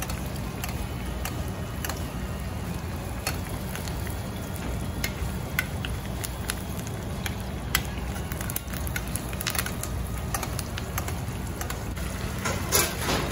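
Butter and olive oil sizzling in a stainless steel pan on high heat as a steak is basted, with a metal spoon clinking against the pan again and again, over a steady low rumble. A louder clatter of metal comes near the end.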